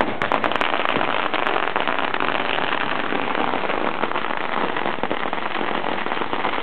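Dense, rapid crackling of firecrackers going off continuously, with a few sharper cracks right at the start.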